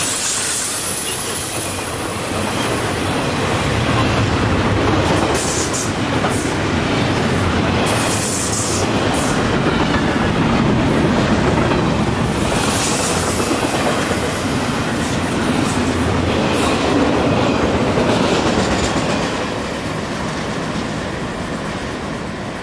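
Double-stack container well cars of a freight train rolling past at speed: a steady, loud rumble and clatter of steel wheels on rail, with a thin high wheel squeal near the start and again a little past halfway. The noise eases off over the last couple of seconds as the end of the train goes by.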